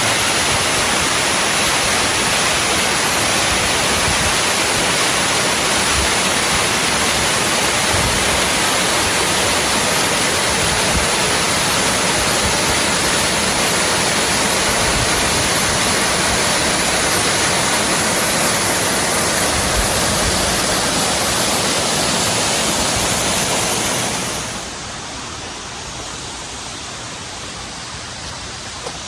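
Waterfall: a steady, loud rush of falling water that drops abruptly to a quieter level near the end.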